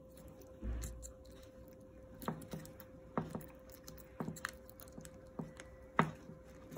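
Small clicks and taps of a plastic plug casing and its brass terminals being handled as the wires are pressed flat into it, a sharp click every half second to second, over a faint steady hum.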